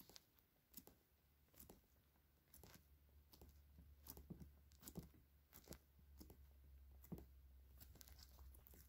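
Faint, irregular sticky clicks and small pops of slime being pressed, poked and pulled with the fingers, the slime still a little sticky.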